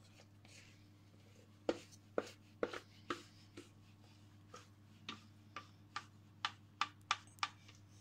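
A spatula knocking and scraping against the inside of a stainless steel mixing bowl as thick cake batter is scraped out: a run of sharp taps, roughly two a second, starting about two seconds in.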